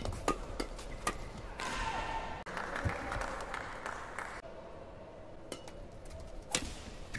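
Badminton rally: sharp cracks of rackets hitting the shuttlecock, a few in the first second and one more near the end, with a couple of seconds of players shouting in the middle.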